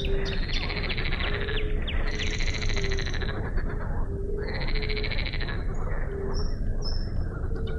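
A chorus of frogs croaking at a pond, many fast trilling calls overlapping, with short repeated low notes among them. A steady low rumble runs underneath.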